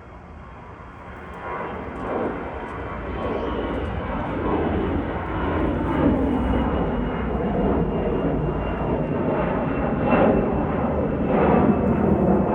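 Airbus A320-214's CFM56 turbofan engines at takeoff power, a jet roar that grows steadily louder over the first few seconds and then holds, with a faint high whine above it.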